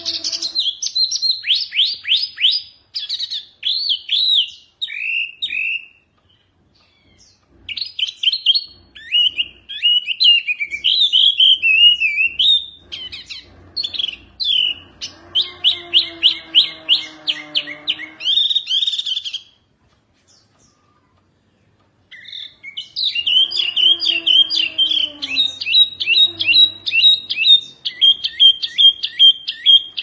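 Caged hwamei mini (wambi mini) songbird singing loud, rapid runs of sweeping whistled notes and trills, in three bouts broken by short pauses about 6 seconds in and about 20 seconds in. Twice a lower, gliding tone sounds beneath the song.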